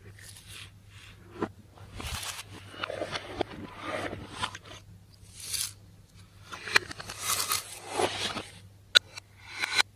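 Slime being mixed and squished by hand: irregular squishing swells broken by sharp clicks and pops, the loudest pop about nine seconds in.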